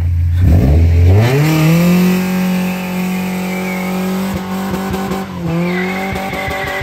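Mini pickup truck doing a burnout: the engine revs up from idle and is held at high revs while the rear tyre spins, squealing and smoking. The revs dip briefly about five seconds in, then climb again as the tyre squeal comes in near the end.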